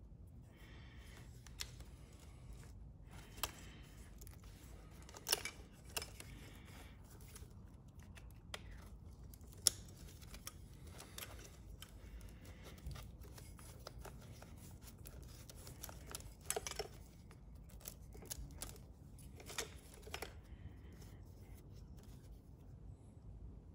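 Plastic electrical connectors and wires of a Power Commander V harness being handled and pushed together at a motorcycle's crank position sensor and fuel injector plugs. Faint scattered sharp clicks over light rustling, the loudest clicks about five and ten seconds in.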